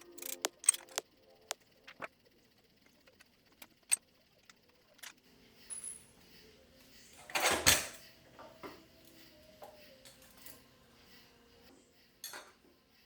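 Scattered metallic clicks and clinks of hand tools and loose metal parts, with one louder clatter lasting about half a second just past the middle.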